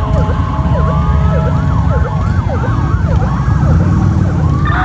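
Several sirens sounding at once, their rising and falling tones overlapping in a continuous din, over the low rumble of motorcycle engines passing by.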